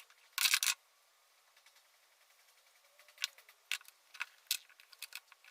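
Sharp clicks and clatter of small metal parts and tools being handled: a louder rattle about half a second in, then a lull, then single clicks from about three seconds on.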